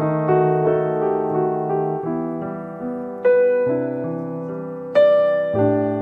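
Background piano music: slow, gentle chords and notes, each struck and left to die away.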